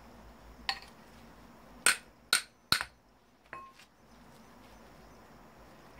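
Hammer blows on a metal part of a dismantled foot massager, struck to force a stuck piece out: five sharp knocks with a short metallic ring, irregularly spaced over about three seconds, the middle three the loudest.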